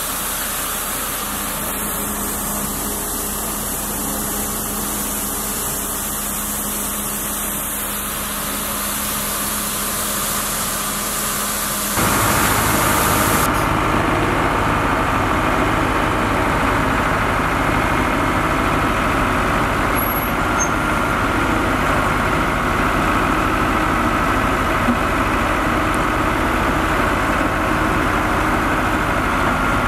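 2006 Elgin Eagle street sweeper truck running, its engine and sweeping gear going steadily. About twelve seconds in, the sound turns abruptly louder and fuller.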